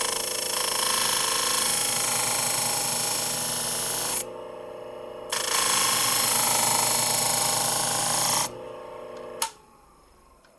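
Powered sharpener running with its 1000-grit plate, a steel shear blade ground against it in two loud hissing passes of about four and three seconds, with the motor's steady hum between them. About nine seconds in, a sharp click, and the motor hum stops.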